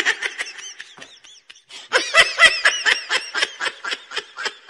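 High-pitched laughter in quick ha-ha-ha bursts, in two bouts with a short pause about a second and a half in.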